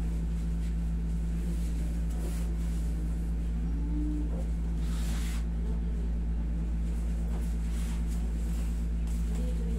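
Steady low hum of a window-type air conditioner running, with a brief rustle about five seconds in.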